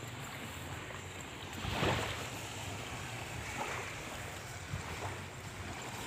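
Wind rushing on the phone's microphone over the wash of the sea at the shore, with a louder gust about two seconds in.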